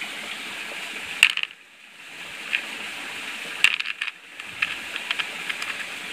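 Small stones and metal sample pieces clicking against each other and a plastic tub as a hand picks through them: a scattering of short, sharp clicks over a steady hiss.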